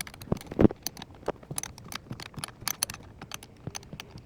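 Irregular small metallic clicks and taps from working the seatbelt pretensioner loose with a screwdriver, with one louder knock about half a second in.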